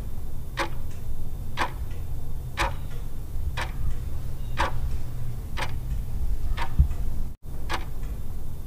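Ticking clock sound effect for a countdown timer: a strong tick once a second with a softer tock between, over a low steady hum. It cuts out for an instant about seven seconds in.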